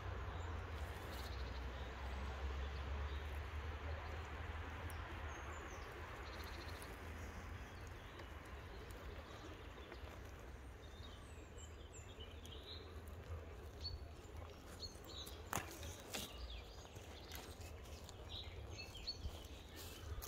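An RC scale crawler's small electric motor and gears whir steadily as it climbs a leafy slope, fading over the first half. Birds chirp faintly from midway, and a few sharp cracks of twigs and leaves underfoot come near the end.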